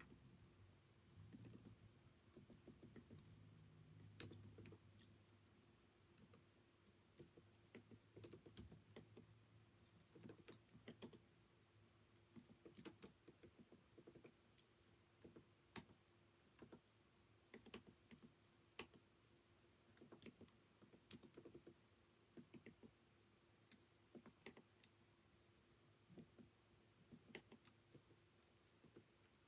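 Quiet typing on a computer keyboard: irregular keystroke clicks coming in short runs with brief pauses between them.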